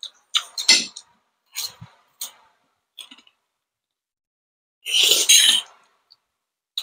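Close-up eating sounds: forks clicking and clinking against plates in short separate taps, then a longer slurp of palabok noodles about five seconds in.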